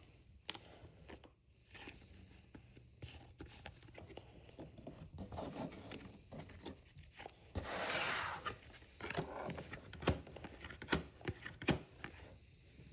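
Baseball trading cards being handled: scattered soft taps and clicks as cards are flipped and shuffled, with a longer scraping rustle about eight seconds in.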